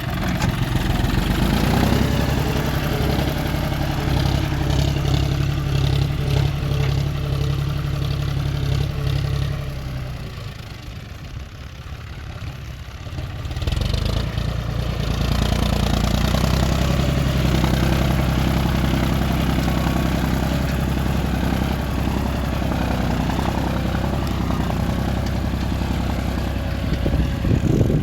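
John Deere 5050D tractor's three-cylinder diesel engine running steadily at working speed. About ten seconds in it fades and drops lower for a few seconds, then picks back up and runs on strongly.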